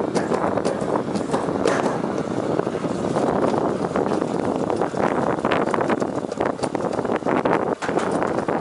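Sled running down a stainless steel bobsled track at speed: a steady rumbling rush with many quick clicks and knocks.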